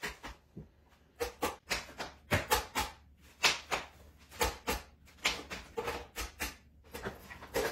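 Suitcases and bags being handled: a quick, irregular string of knocks, clicks and rustles, several a second.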